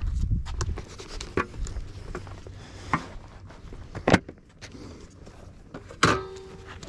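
Handling noise as a camera and gear are moved about: scattered clicks, knocks and rustling, the loudest knock about four seconds in. Near the end a knock is followed by a short steady beep.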